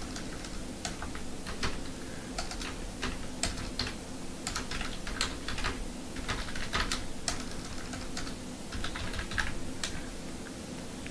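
Typing on a computer keyboard: irregular runs of key clicks, several a second, with short pauses between runs.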